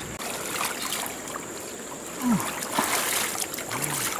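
Water splashing and sloshing as hands grope and stir through a shallow muddy pool, over the steady rush of running stream water. A brief vocal sound stands out about two seconds in.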